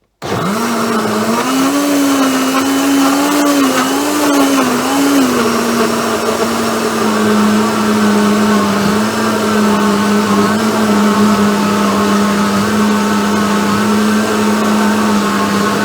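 Philips countertop blender running at full speed, blending a smoothie with ice cubes and oats. The motor's pitch wavers for the first few seconds as the contents churn, then settles into a steady hum.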